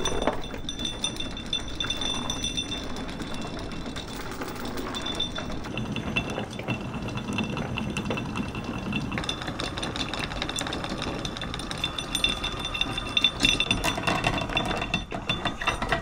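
Galvanized anchor chain rattling and clinking link against link as it is hauled up over the boat's bow, with louder clanks from about twelve seconds in.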